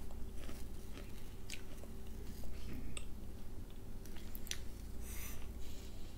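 A child chewing and crunching crisps, with a handful of sharp crunches scattered through the chewing.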